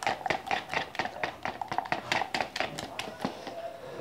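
A spoon stirring thick henna paste in a plastic tub, tapping and clicking against the sides about five times a second. The taps thin out near the end.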